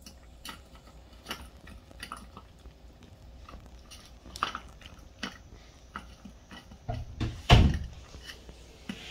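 Small dog licking and chewing food from a stainless steel bowl: irregular wet clicks and taps of tongue and teeth against the metal. There is one louder, heavier knock about seven and a half seconds in.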